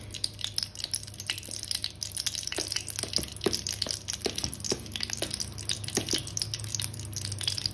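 Desi ghee melting in an aluminium kadhai over a gas flame, with faint irregular crackles and pops from the hot ghee over a low steady hum.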